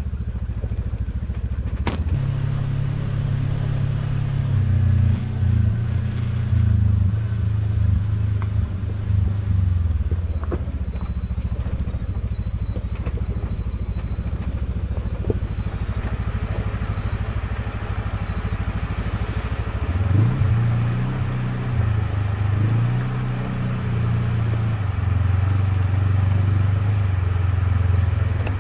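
Off-road vehicle engine running as it drives along a trail, its pitch rising and falling with the throttle, with a sharp click about two seconds in.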